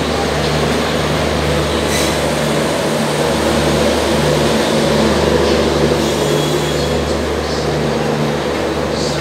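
Passenger train hauled by a WAP-4 electric locomotive rolling through the station: steady rumble of wheels on rail, with a low hum that drops out and returns every second or so.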